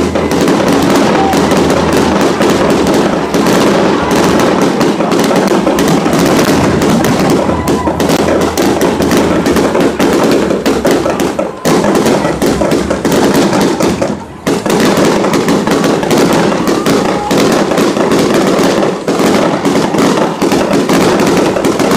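Aerial fireworks going off in a loud, rapid, near-continuous barrage of bangs and crackles. The barrage briefly lets up twice about midway.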